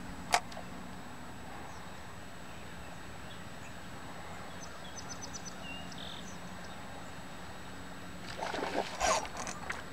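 Quiet ambience while fishing from a canoe on a river: a sharp click just after the start, a few faint high chirps around the middle, and a short cluster of louder scuffing noises near the end.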